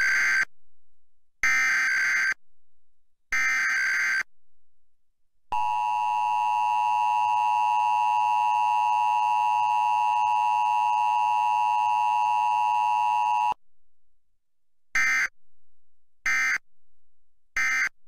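Emergency Alert System tones for a Required Weekly Test. Three harsh one-second SAME header data bursts open it, then the two-tone attention signal (853 and 960 Hz) holds steady for about eight seconds. Three short end-of-message data bursts close it.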